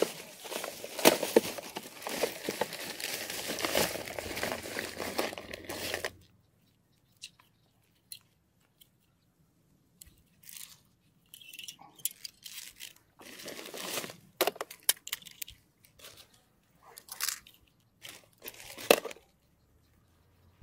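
Plastic bag crinkling for about six seconds as a gloved hand rummages in it. After that come scattered short rustles and clicks from handling fishing line and tackle.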